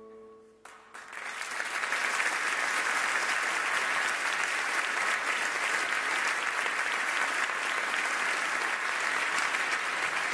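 The last held chord of a song fades out, and about a second in a concert audience breaks into applause that swells and then holds steady, stopping abruptly at the end.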